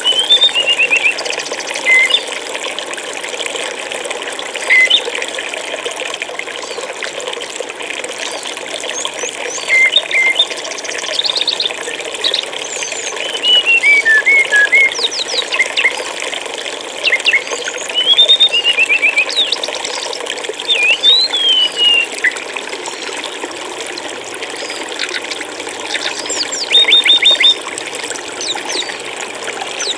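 Steady flowing water, like a running stream, with a small songbird's high chirps, quick trills and short sweeping whistles scattered over it, several times louder than the water in short spells.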